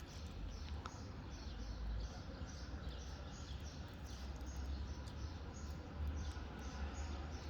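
Faint, high chirps repeated over and over, like a small bird calling, over a low steady hum.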